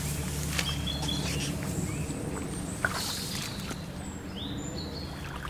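Riverside ambience: a steady rush of flowing river water, with songbirds giving short chirps that come more often in the second half, and one sharp click about three seconds in.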